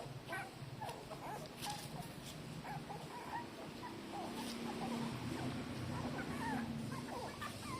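Newborn puppies squeaking and whimpering again and again as they nurse, over a low steady rumble.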